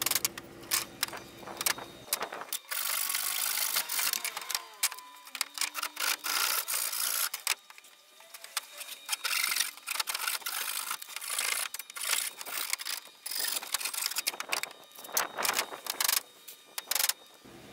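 Hand saw cutting through old wooden roof slats in repeated strokes, mixed with sharp clacks of boards being handled and set in place.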